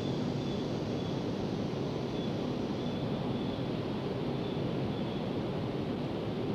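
Steady, even rushing noise with no clear pitch, with a faint, broken high tone that comes and goes several times.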